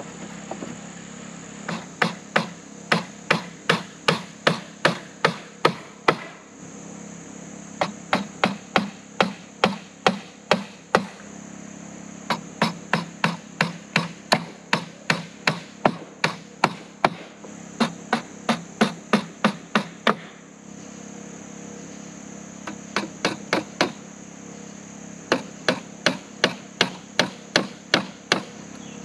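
A hammer driving nails into pallet-wood boards: several runs of sharp, evenly spaced blows, about two or three a second, each run stopping after a few seconds before the next begins. Insects buzz steadily in the background.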